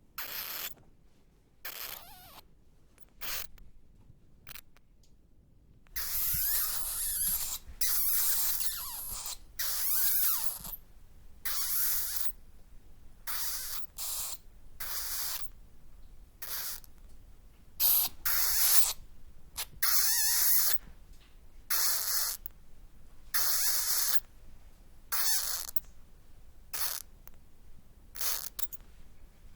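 Bats chittering and squeaking in short, high, hissy bursts: sparse for the first few seconds, then coming about once a second.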